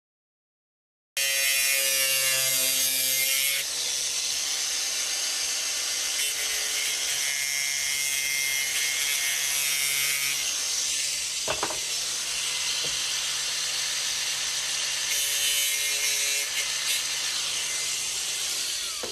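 A power saw running steadily, cutting luxury vinyl plank flooring. It starts suddenly about a second in and stops just before the end.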